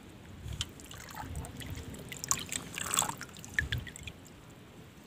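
Faint trickling and lapping of pond water, with scattered light ticks.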